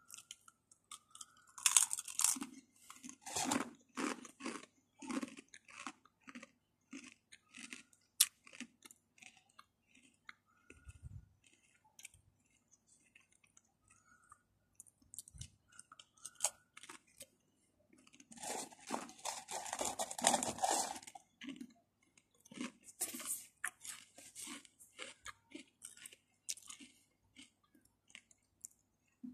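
Close-up crunching and chewing of Mamee Ghost Chili Pepper black crisps. Two spells of loud crunching, about two seconds in and again about twenty seconds in, with quieter chewing between them.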